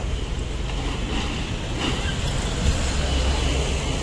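Backhoe's diesel engine running steadily with a low rumble that grows louder for about a second after the middle.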